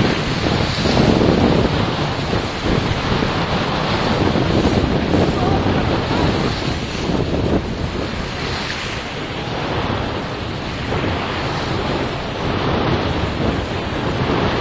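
Wind buffeting the microphone over the rush and splash of water along the hull of a sailing yacht heeled over and moving under sail, a steady noise throughout.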